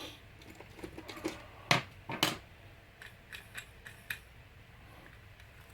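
Small hard clicks and knocks of a plastic model locomotive being handled and fitted together, with two louder knocks about two seconds in.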